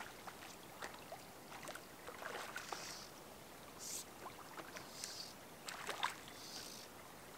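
Faint splashing of lake water, several short splashes a few seconds apart, as a hooked brook trout thrashes at the surface while being played in on a fly rod.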